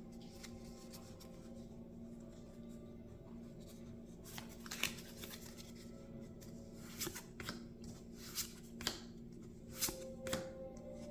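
Trading cards from a freshly opened booster pack being handled and flipped through: light snaps and slides of card stock that start about four seconds in and come more often toward the end, over quiet background music.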